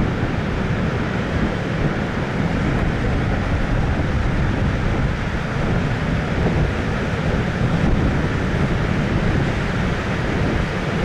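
High surf after a typhoon, running as a steady, dense roar of breaking waves, with wind buffeting the microphone.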